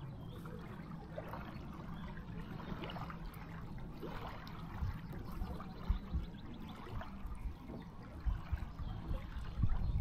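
Small river waves lapping and trickling at a sandy bank, over a steady low rumble, with a few soft knocks about halfway through and again near the end.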